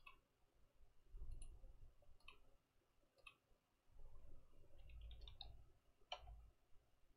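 Faint, scattered clicks of a computer mouse, about half a dozen single clicks with a quick cluster about five seconds in, over faint low rumbles.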